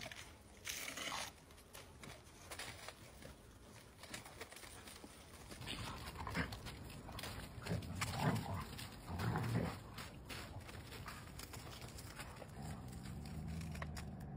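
Dogs playing and vocalizing, with a few short low sounds in the middle and a longer low sound near the end.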